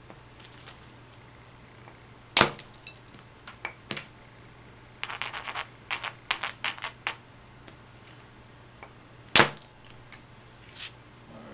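Flint knapping: two sharp cracks of a hammerstone striking the edge of a flint preform, about seven seconds apart. Between them come a few lighter clicks and a run of quick scraping ticks as the stone works the very edge to set up a new striking platform.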